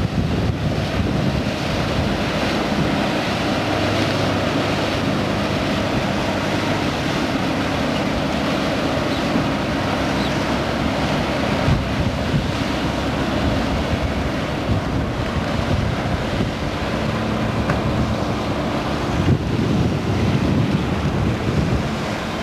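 Wind buffeting the microphone over the wash of the sea, with a low steady hum from a motor cruiser running at speed.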